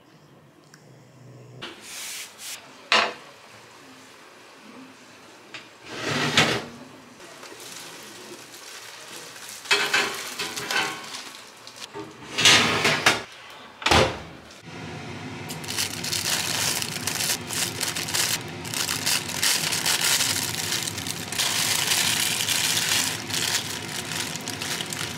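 Kitchen handling sounds: a few separate clatters of dishes and an oven rack, then, from about fifteen seconds in, steady crinkling and rustling of a plastic oven bag as it is opened and emptied into a bowl.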